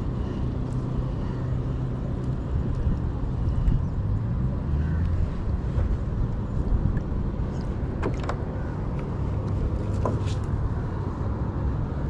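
Wind buffeting a chest-mounted action camera's microphone, a steady low rumble, with a couple of light clicks about eight and ten seconds in.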